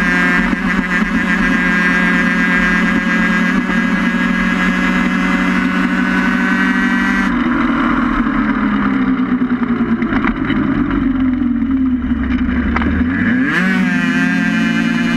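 Onboard sound of a small racing vehicle's engine held at steady high revs, then the throttle is lifted about seven seconds in and the pitch falls steadily as it slows into a bend. Near the end the revs climb sharply again as it accelerates out.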